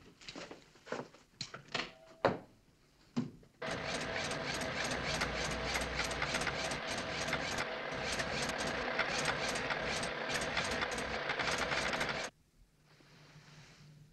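Sound effect of a 1960s computer at work: a dense mechanical chatter with an even rhythm of about four clicks a second over steady held tones. It starts abruptly a few seconds in after some scattered short clicks and rustles, and cuts off suddenly near the end.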